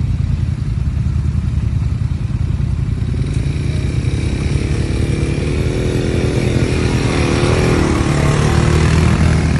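Quad bike engine running steadily, growing louder as the quad comes up and passes close by near the end.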